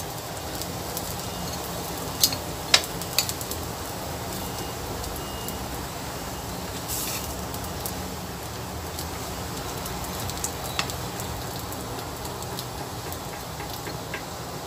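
Kepok banana slices sizzling steadily as they fry in a little oil in a nonstick pan. A few sharp clicks come from a utensil knocking the pan as the slices are turned, three close together a couple of seconds in and another near the end.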